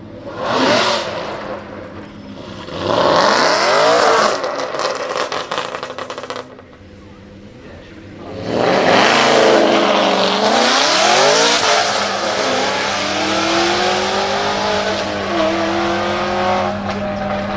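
Aston Martin Vantage AMR Pro's 4.7-litre V8 racing engine: a sharp rev blip, then revs climbing into a rapid run of exhaust crackles and pops that cuts off abruptly. About two seconds later the engine comes back loud under hard acceleration, its pitch climbing and dropping back at gear changes, then running on steadily.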